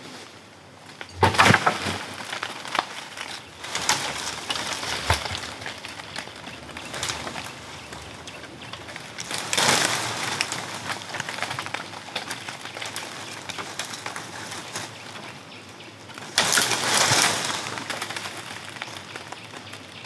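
Woody forest vines and branches rustling and crackling in several bursts as they are pulled down and handled, with birds calling in the background.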